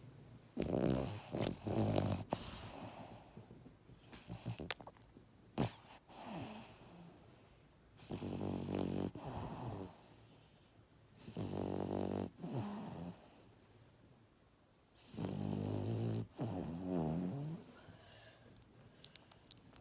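French bulldog puppy snoring in bursts of one to two seconds each, four loud snores with quieter breathing between.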